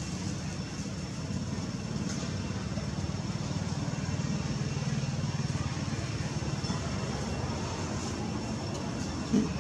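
Steady low rumble of an engine running in the background, with one short sharp sound near the end.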